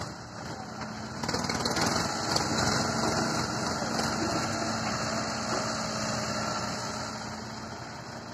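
Diesel engines of farm tractors idling alongside a working excavator. The running is steady, grows louder about a second in, and eases off slowly toward the end.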